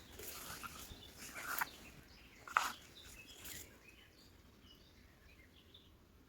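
Rustling and crackling of grass and plant stems as someone pushes on foot through dense undergrowth, with a few sharp snaps in the first few seconds, then a quieter stretch with faint bird chirps.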